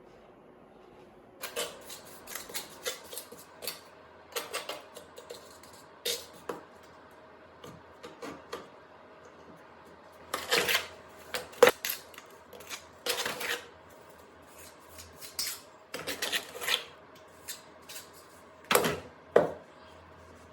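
Irregular clinks and knocks of hard objects being handled, coming in short clusters, the loudest about twelve seconds in and near the end.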